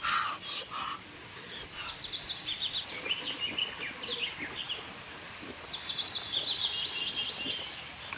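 A bird singing two songs, each a fast run of short notes stepping down in pitch and lasting about two and a half seconds.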